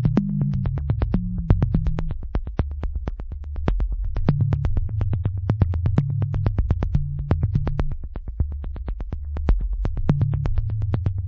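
Electronic background music: a synthesizer bass line under a fast, steady beat of sharp hits, about four or five a second.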